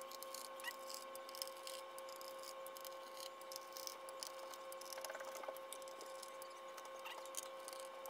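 Faint scattered clicks and light scrapes of a small screwdriver turning out the screws of an MSI GF63 Thin laptop's plastic bottom cover, over a steady faint tone.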